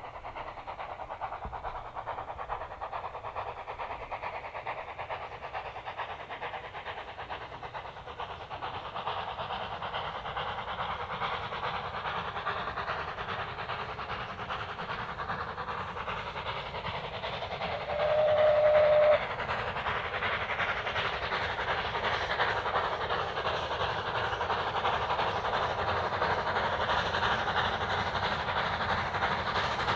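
Narrow-gauge steam locomotive working a train of coaches, its running noise growing louder as it approaches. It gives one short whistle blast, about a second long, a little over halfway through.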